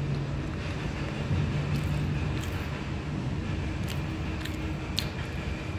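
Steady low background rumble with a few short, sharp crackles scattered through it.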